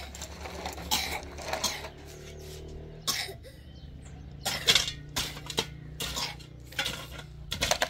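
Metal tools clinking and scraping against concrete blocks and mortar as a block wall is being built. The strikes come irregularly, the loudest about two-thirds of the way through, over a steady low hum.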